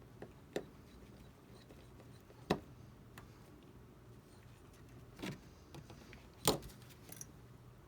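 Scattered sharp clicks and taps of small repair tools handled during iPad reassembly, about four louder ones with fainter ticks between.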